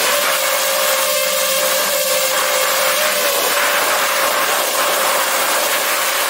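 DJI FPV drone's motors and propellers running steadily in flight, heard up close from the drone itself: a steady whine with a dense rushing hiss.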